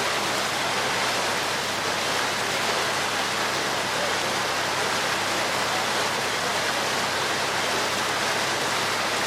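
Steady rushing of water along the hull of a small lake ferry under way.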